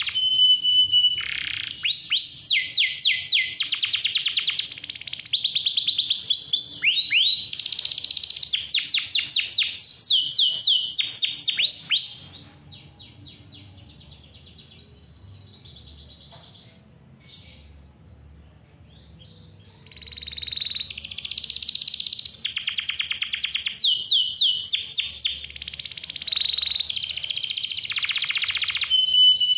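Domestic canary singing a long, varied song of rapid trills, rolls and sweeping whistled notes. The song drops to a soft, fast trill for several seconds in the middle before returning loud.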